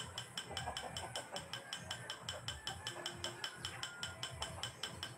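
A fast, even mechanical ticking, about eight clicks a second, with faint low pulsing beneath it.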